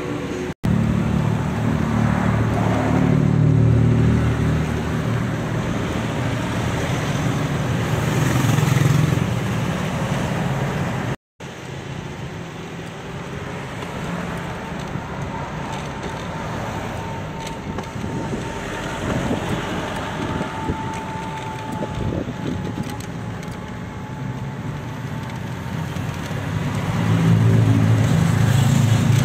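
Steady road-traffic and vehicle noise with a low rumble, louder at the start and again near the end, cut twice by a sudden moment of silence, about half a second in and about eleven seconds in.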